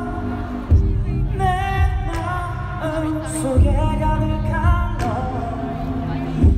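Live pop music at an arena concert through the PA: singing over a backing track with deep bass hits roughly once a second, recorded from within the audience.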